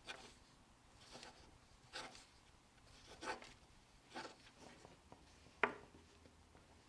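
Faint, brief scratching and rubbing sounds, about six of them at irregular intervals roughly a second apart; the sharpest comes a little over halfway through.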